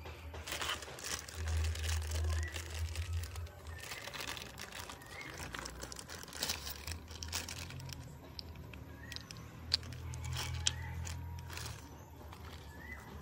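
Clear plastic packaging bags crinkling and rustling as they are handled and opened to unwrap hard plastic roof-rack crossbar parts. A couple of sharp clicks come about three-quarters of the way through.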